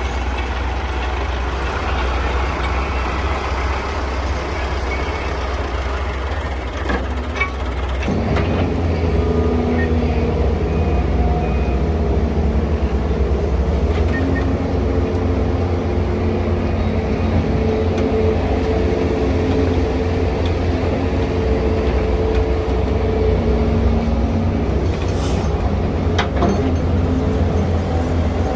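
Excavator's diesel engine and hydraulics running steadily while it works. About eight seconds in, the engine gets louder and a steady higher hum joins it, as the machine comes under load.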